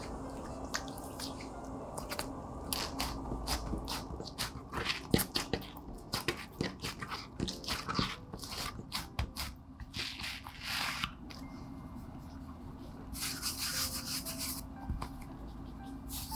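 Food-preparation handling sounds: a run of light taps and clicks from utensils and containers, with a couple of brushing swishes.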